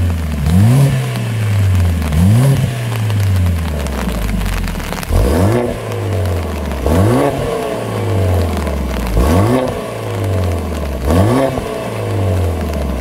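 Mercedes-AMG CLA45 S's turbocharged four-cylinder blipped through a catless valved Armytrix exhaust: about six sharp free-revs, each climbing quickly and falling away, roughly two seconds apart. The first revs are with the exhaust valves closed; from about five seconds in the valves are open and the revs sound fuller and brasher.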